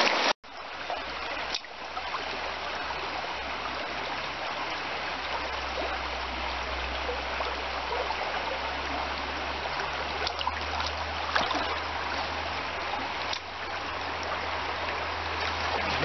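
Mountain stream rushing steadily over rocks. The sound drops out briefly about half a second in, and a few faint ticks are heard.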